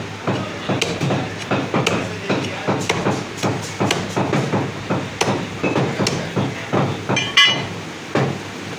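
Heavy meat cleaver chopping through goat ribs onto a wooden chopping block: quick, even chops, about two to three a second. Near the end there is one louder clank with a brief ring, and the chopping stops.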